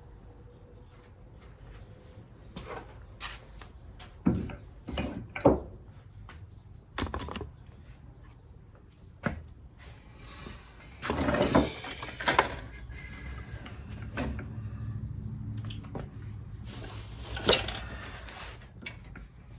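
Workshop handling noise: scattered knocks and clatters of tools and fork parts being picked up and set down, with two longer rough scraping rattles, over a low steady hum.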